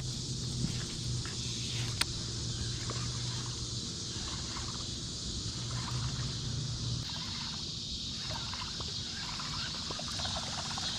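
Steady open-air hiss of water and wind around a kayak on a river, with a low steady hum until about two-thirds of the way through and one sharp click about two seconds in.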